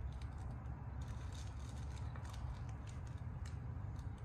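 A person chewing a soft cookie, with faint crinkles and clicks from its plastic wrapper, over a steady low rumble.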